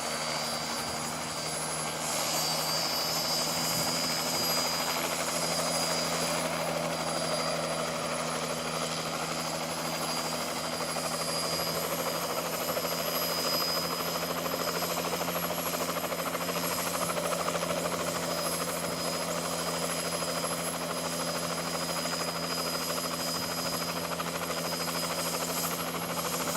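Helicopter running close by: a steady low hum with a high, steady whine above it. It gets louder about two seconds in, where the whine also steps up slightly in pitch.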